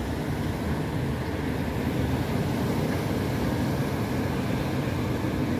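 Steady beach noise of wind and surf, a low rumble that holds at an even level.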